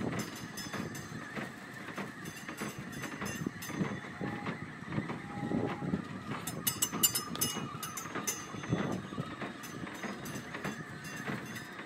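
Kiddie fire-truck ride turning: a steady mechanical rumble with irregular clicks and rattles, busiest about seven seconds in.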